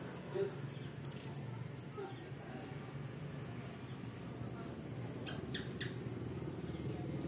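Quiet room tone with a steady, high-pitched insect trill throughout, over a low hum and a faint murmur. Three quick sharp clicks come a little past five seconds in.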